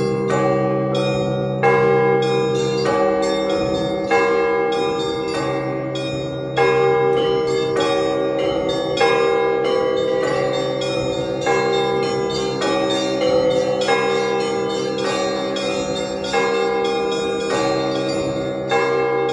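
Russian Orthodox church bells rung together in a full peal. A heavy bell strikes about every two and a half seconds over a fast, steady pattern of smaller bells, with the tones ringing on and overlapping.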